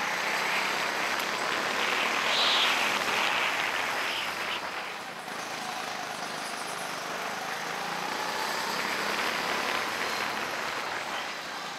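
Go-kart driving at speed around an indoor track, heard from on board as a steady rushing noise that swells loudest about two seconds in. A faint tone rises and falls near the end.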